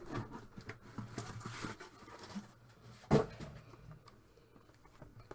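Sealed cardboard trading-card boxes being handled and shifted: light rustles and taps, with one louder knock about three seconds in.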